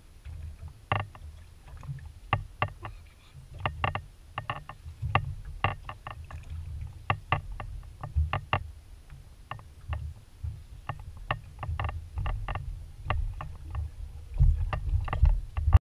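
Low rumble of wind and water around a small aluminium boat at sea, with irregular sharp knocks and clicks about two or three times a second. The rumble grows louder over the last second or so.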